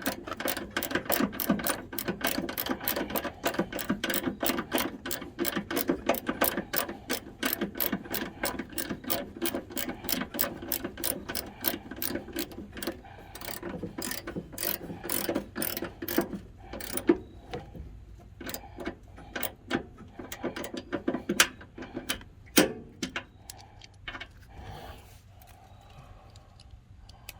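3/8-inch drive socket ratchet clicking rapidly as a bolt is run in, the clicks thinning to slower, irregular strokes about halfway through and stopping a few seconds before the end.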